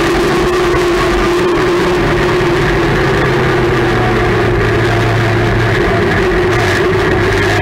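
Dirt-track race car engine running at fairly steady revs, heard from inside the cockpit. Its low drone drops slightly about three seconds in.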